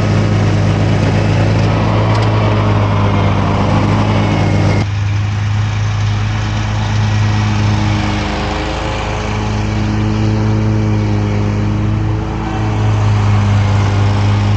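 Small gasoline engine of lawn equipment running steadily at full throttle, a loud continuous drone. The sound changes abruptly about five seconds in, as at a cut.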